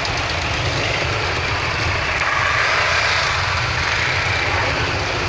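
A line of motorcycles riding slowly past one after another, their engines running steadily.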